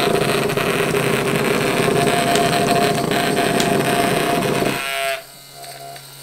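Scribbling machine's small DC motor with an eccentric weight buzzing, while its four felt-tip marker legs rattle and chatter on the paper as it jitters about drawing random lines. About five seconds in it is lifted off the paper: the rattle stops and only the motor's quieter hum is left.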